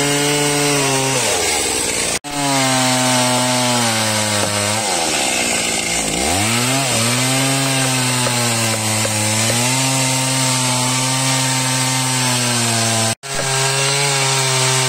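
Two-stroke chainsaw running at high revs as it cuts into a large tree trunk; twice the engine note drops low and climbs back up. The sound breaks off for an instant twice, abruptly.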